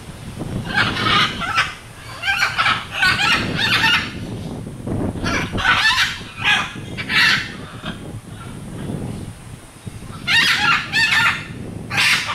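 Parrots squawking: harsh, raspy calls in repeated bursts, with a lull of a few seconds after the middle before a fresh round of calls.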